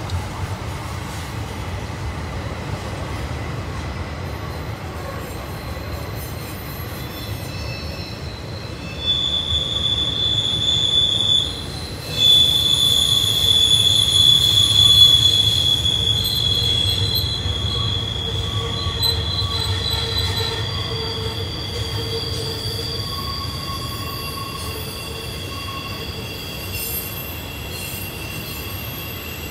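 Intermodal freight train of double-stack container well cars and trailer flatcars rolling past with a steady low rumble. About a third of the way in, a loud, high, sustained wheel squeal sets in, breaks off for a moment, then resumes and slowly fades, with other squeal pitches joining near the end. The squeal is the wheel flanges grinding against the rail on the tight curve.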